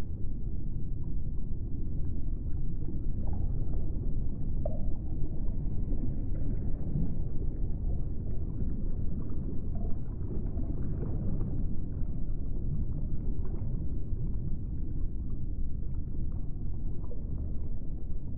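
Low, steady rumbling drone of an ambient soundtrack, with faint scattered higher sounds over it.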